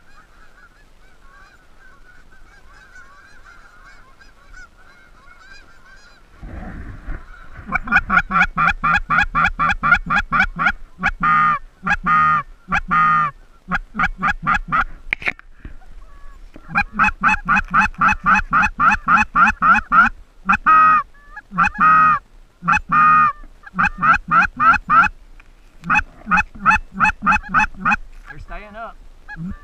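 Geese honking: faint, distant honks at first, then from about eight seconds in a loud, fast run of honks, several a second, broken by short pauses as the flock comes in close overhead.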